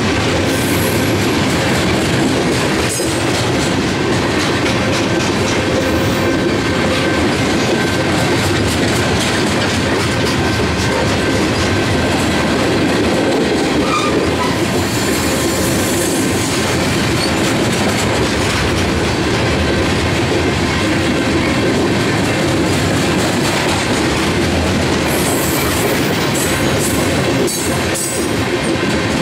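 Freight train of loaded steel-coil flatcars rolling past: a steady rumble of steel wheels on rail, with irregular clicks as the wheels cross rail joints.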